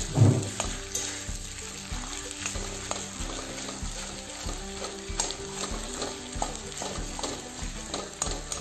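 Mashed boiled potato being stir-fried in oil in a kadai: a spatula scrapes and knocks against the pan at an irregular pace over a light sizzle. There is one loud knock just after the start.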